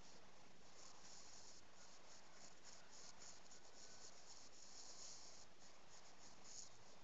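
Faint scratchy rubbing of a short-bristled paintbrush scrubbing textile paint into chiffon fabric. It comes in repeated short strokes, with a couple of longer ones.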